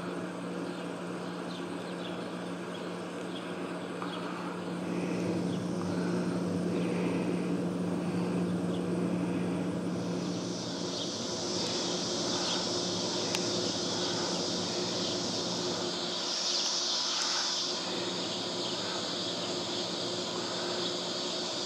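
Outdoor ambience: a steady low hum, joined about ten seconds in by a high insect drone that swells and fades.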